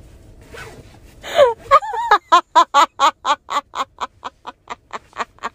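A person laughing hard: a rising gasp, then a long run of quick 'ha-ha' pulses, about five a second, fading toward the end.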